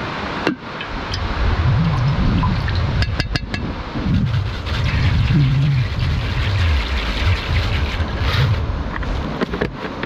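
Wind buffeting the microphone: a loud, uneven low rumble, with a few sharp clicks about three seconds in and a brief hiss near the end.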